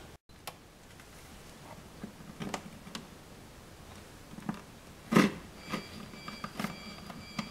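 Utility knife blade scoring the paint seam along the edge of a plastic wall plate: scattered short scratches and clicks, with a thin scraping squeal in the last two seconds.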